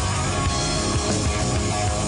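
Rock music with distorted electric guitar and a steady beat.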